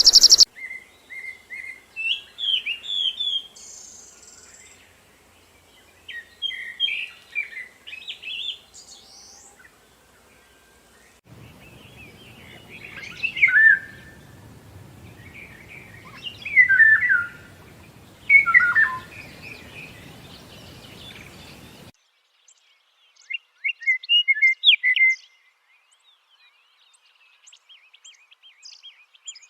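Songbirds singing in short, repeated phrases of chirps and falling whistles, with pauses between them. A brief loud noise burst comes at the very start, and the background hiss changes abruptly twice, as if separate recordings were spliced together.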